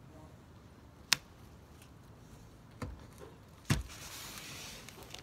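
Tools and gear being handled on a vehicle roof: a sharp click about a second in, then a couple of duller knocks, and a soft hiss near the end.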